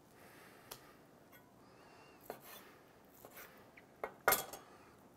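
Knife slicing smoked brisket on a wooden end-grain cutting board: quiet cutting with a few short knocks of the blade against the board, the loudest about four seconds in.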